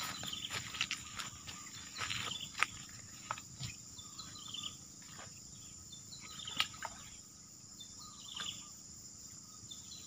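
Steady high-pitched drone of crickets or cicadas, with short chirps now and then. Scattered clicks and rustles of someone stepping through grass and mud, the sharpest about two and a half seconds and six and a half seconds in.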